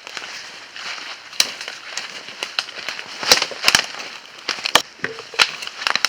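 Footsteps crunching through dry leaves and twigs: irregular crackles and snaps, the loudest a little past the middle.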